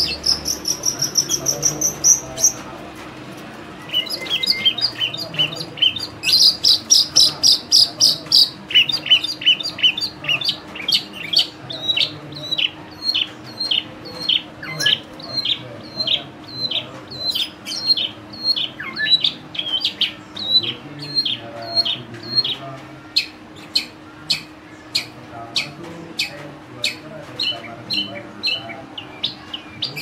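Long-tailed shrike singing: a fast, high trill in the first two seconds, then after a short pause a long run of quick, high repeated notes, each sliding downward, at about two a second.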